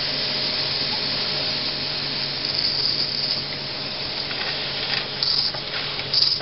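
J. Falk 145 toy steam engine hissing steadily as steam is let into it to start it, with a few faint ticks beginning about four seconds in as the engine starts to turn.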